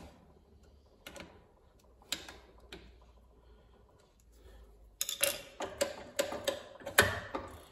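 Sparse small metallic clicks and taps as a screwdriver tightens the screws of a homemade spindle-lock bracket on a milling machine. From about five seconds in comes a quicker run of metal clicks and knocks as the sliding lock bar is handled.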